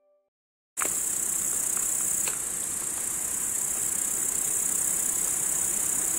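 Insects chirring steadily in summer grass, a dense high-pitched trill that starts suddenly about a second in, just after the last notes of a music intro fade away.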